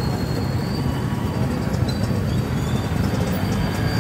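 Steady street traffic noise: a continuous low rumble of passing vehicles.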